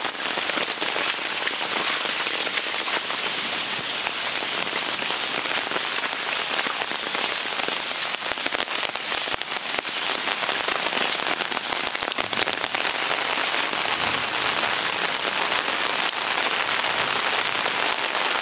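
Heavy rain pouring down steadily, a dense, even patter of drops hitting surfaces.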